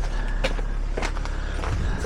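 Locksmith's latch tool working at a front-door latch: a few short, light clicks and scrapes, over a steady low hum.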